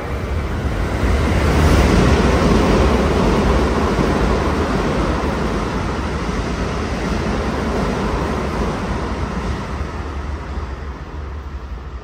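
Electric commuter train running along the track beside a station platform: a low rumble and rush of wheels on rails, building to its loudest about two seconds in and slowly easing off.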